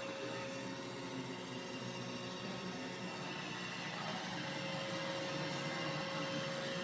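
iRobot Roomba j7+ robot vacuum running: a steady whir with a faint constant hum.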